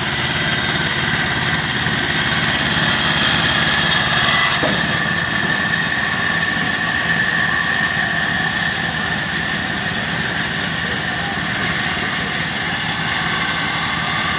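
Engine of a half-scale sawmill running steadily at an even speed, with a steady high whine over it.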